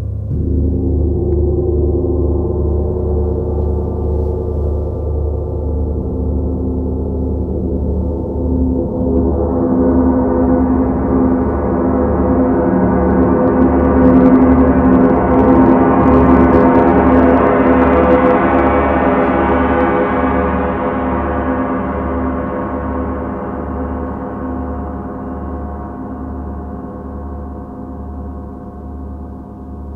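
Large suspended gongs struck with soft mallets, building into a dense, sustained wash of overlapping ringing tones. The sound grows brighter and louder towards the middle, then slowly dies away, over a slow, even low pulse.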